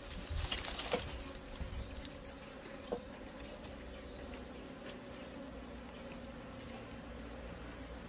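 Many Korean native honeybees (Apis cerana) buzzing around a wooden box hive as it is handled: a steady drone with single bees flitting past, and a light knock or two from the wooden boxes.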